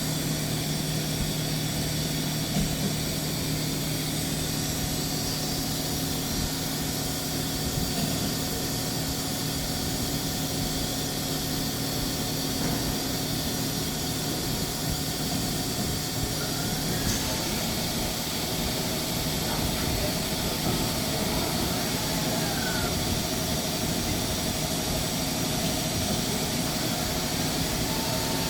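2017 DMG Mori CMX 50U five-axis vertical machining center running, a steady hum and whine over a constant hiss. From a bit past halfway come a few short pitch sweeps that rise and fall as the machine works.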